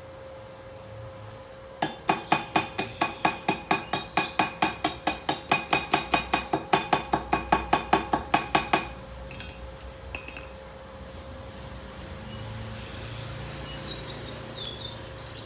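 Chipping hammer rapping on a steel welding plate, knocking slag off a stick-weld bead: a fast run of ringing metal strikes, about five a second for some seven seconds, then two single knocks. A faint steady hum runs underneath.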